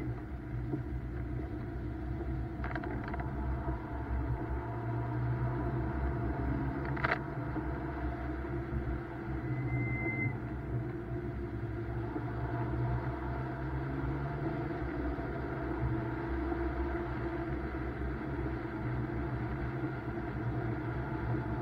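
BMW M2's turbocharged straight-six engine running steadily under way on a wet track, with a low rumble of tyres and road underneath. One sharp click about seven seconds in.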